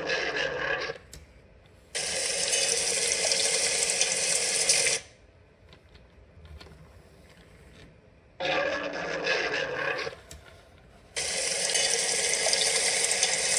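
A small battery-powered robot's electric motor and gears running in stop-start bursts, each starting and stopping abruptly: a short one at the start, about three seconds from two seconds in, about two seconds from eight and a half seconds, and again from about eleven seconds on.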